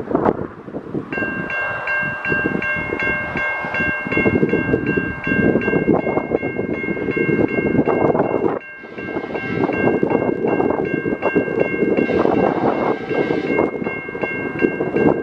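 Level crossing warning bell ringing in rapid even strokes, about five a second, starting about a second in. Under it runs the rumble of the approaching Tasrail TR-class diesel locomotive and wind on the microphone.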